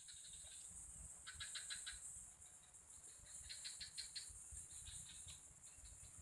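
Faint outdoor ambience: a steady high-pitched insect drone, with two short trills of rapid chirps, one about a second in and one about three and a half seconds in.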